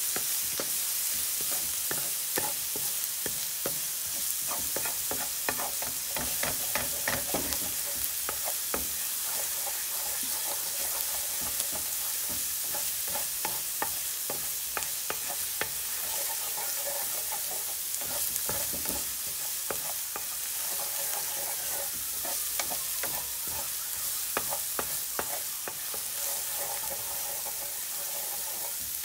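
Minced garlic sizzling in hot oil in a pan, stirred and scraped around with a wooden spatula: a steady high sizzle with many light clicks and scrapes from the spatula on the pan.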